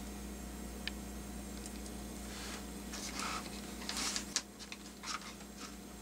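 Handling noise from plastic-sheathed wires, spiral wrap and small plastic connectors being sorted by hand: a single click about a second in, then a run of rustles and light clicks, busiest in the second half.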